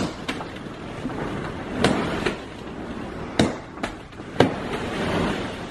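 Hollow plastic ball-pit balls rustling and clattering as a person churns through a pit full of them, with about six sharp knocks scattered through.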